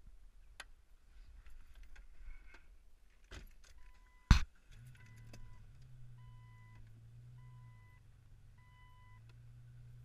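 Jeep driver's door slammed shut about four seconds in, after a few small clicks and key rattles. Then the Jeep's warning chime beeps five times, evenly about once a second, over a low steady hum.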